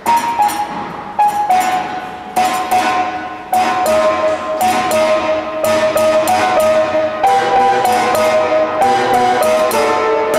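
Grand piano being played: a steady stream of short struck notes with ringing decays, beginning with a sudden loud note.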